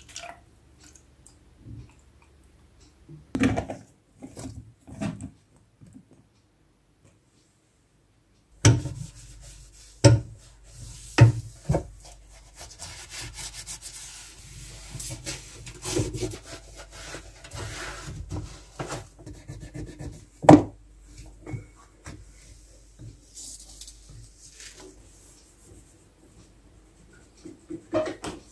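Hand scrubbing inside a dishwasher with a sponge and cloth: continuous rubbing and scraping around the tub and filter sump, with several sharp knocks. Before the scrubbing begins there are a few separate knocks and a short quiet gap.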